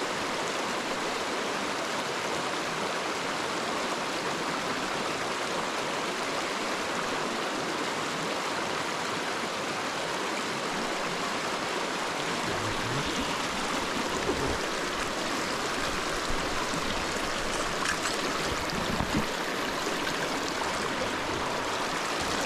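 Small rocky creek rushing steadily over stones and shallow riffles.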